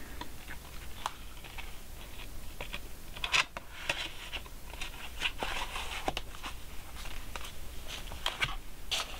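Cardboard packaging of a makeup palette handled and opened: paperboard rustling and scraping, with scattered small clicks and taps.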